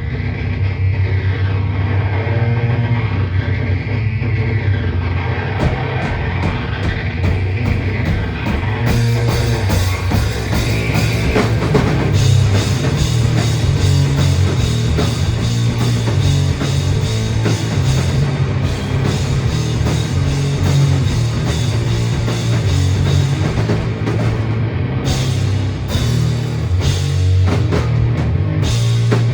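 Live heavy rock band playing loud, with guitars, bass and drums over a heavy low end. Cymbals come in about five seconds in and the drumming fills out from about nine seconds, with a brief break in the cymbals near the end.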